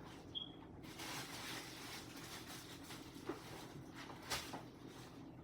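Faint rustling and a few light knocks from groceries being handled and sorted, with a brief high beep near the start.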